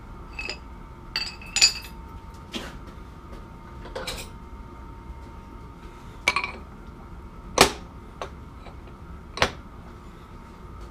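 Scattered metallic clinks and knocks of steel lathe tooling being handled, about nine in all, some ringing briefly, the loudest a little past the middle. A faint steady hum runs underneath.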